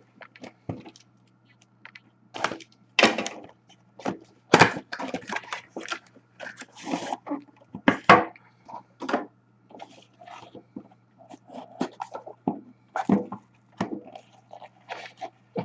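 Hands opening and handling an Upper Deck Grandeur hockey card box and its packaging: irregular crinkling, scraping and clicking.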